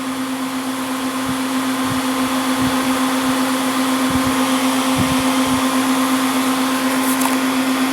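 Newly built desktop PC running at its first power-up: the case, cooler and radiator fans whir with a steady hum, the noise slowly growing louder.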